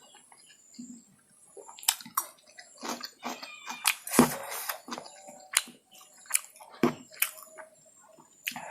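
Close-miked chewing of chow mein noodles: irregular wet mouth clicks and smacks, with a couple of louder smacks about four and seven seconds in.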